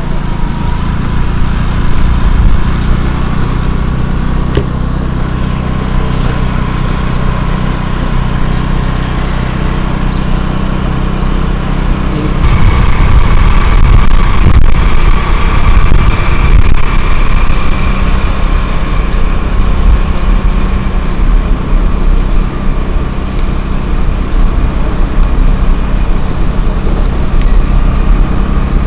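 Motorcycle engine running steadily while riding along an open road, getting louder about twelve seconds in.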